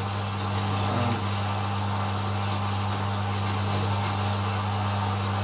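Horizontal metal-cutting band saw running steadily as its blade cuts through a steel plate under coolant, its motor giving a constant low hum with a steady hiss above it.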